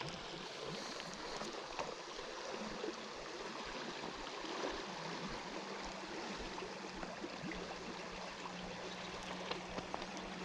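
River current rippling over the edge of a gravel bar: a steady, even rush of water, with a few faint clicks.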